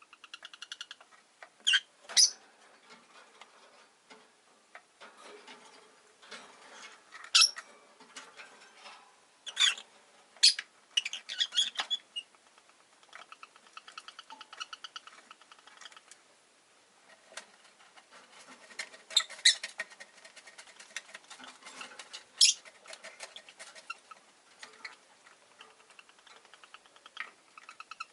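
Rosy-faced lovebirds chattering in rapid, soft runs of chirps, with about eight sharp, loud shrill calls breaking in at intervals.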